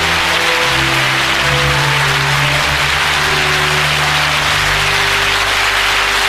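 Live audience applauding loudly over play-off music with held notes and a moving bass line; the applause marks the end of the comic sketch.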